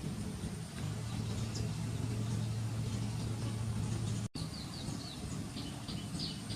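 A steady low hum like a running engine, briefly cut about two-thirds through. After the cut, a quick string of short, high bird chirps comes in over the hum.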